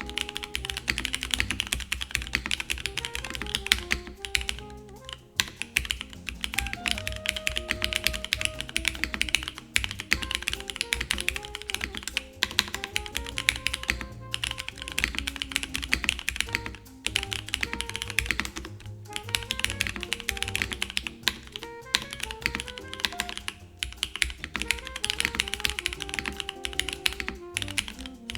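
Fast, continuous typing on a mechanical keyboard with Cherry HG Black linear switches, GMK keycaps and a polycarbonate plate with no foam, in runs broken by short pauses. Background music plays underneath.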